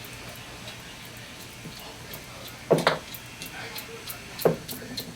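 Light metallic clicking and ticking as a lock nut is hand-threaded down a 14 mm hub axle. Two louder knocks come about two and three-quarter and four and a half seconds in.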